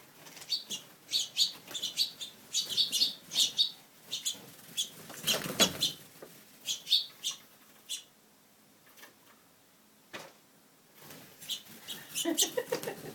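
Small finches chirping indoors, many short sharp chirps in quick succession. A brief louder rush of noise comes about five and a half seconds in, and the chirping drops away for a few seconds near the end before picking up again.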